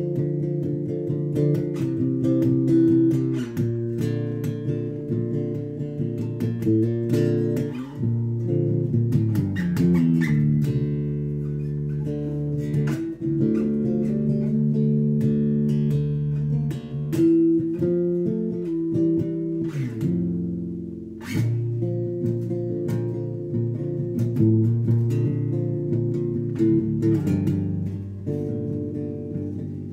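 Electric bass guitar being played: a continuous line of sustained, ringing low notes, with a brief break about two-thirds of the way through.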